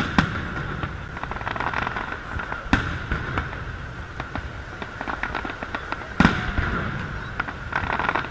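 Aerial firework shells bursting: three loud bangs, just after the start, about three seconds in and a little past six seconds, with rapid crackling in between.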